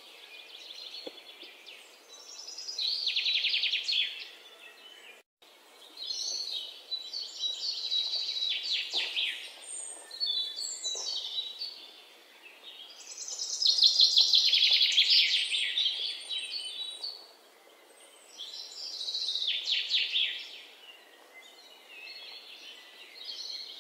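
Birds chirping and trilling in repeated phrases of a few seconds each, with short pauses between.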